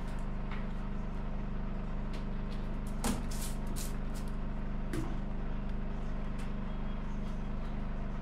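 A paint tub is handled, with a knock about three seconds in, a few short scrapes just after, and a second, lighter knock about five seconds in. A steady low mechanical hum runs underneath throughout.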